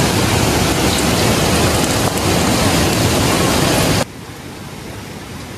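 Gorengan fritters deep-frying in hot oil: a loud, steady sizzle that cuts off abruptly about four seconds in. A quieter steady hiss follows.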